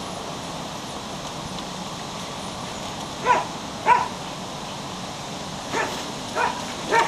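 Belgian Shepherd puppy giving five short, high yips: two about three seconds in, then three more near the end.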